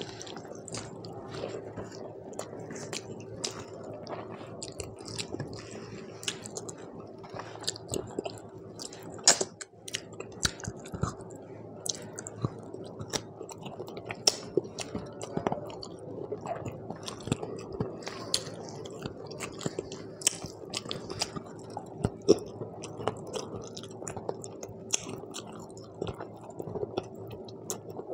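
Close-miked chewing of mouthfuls of rice mixed with mutton curry, eaten by hand, with wet mouth clicks and the squish of fingers working rice on a banana leaf. Many sharp clicks come throughout, the loudest about nine seconds in, over a steady low hum.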